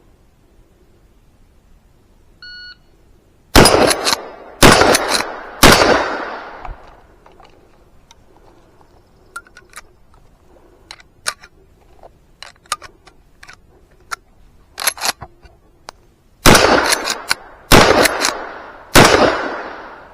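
A shot-timer beep, then three shots from a Rossi R92 lever-action rifle about a second apart. Next comes a run of small clicks and clacks as rounds are fed into the tube magazine, then three more shots about a second apart.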